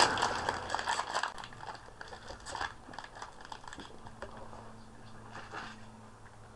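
Foil Yu-Gi-Oh booster pack wrapper crinkling and crackling as it is handled and opened, busiest in the first second and a half, then fainter scattered crackles.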